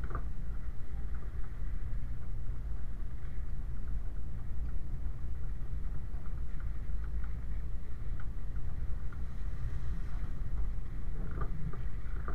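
Land Rover 90 driving along a rough, wet gravel track, heard from a GoPro mounted on its rear: a steady low rumble with scattered small clicks and rattles, a little busier near the end.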